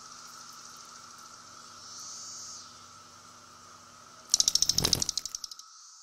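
Brood X periodical cicada held between the fingers giving a short buzz of rapid clicks, about a dozen a second, lasting about a second near the end.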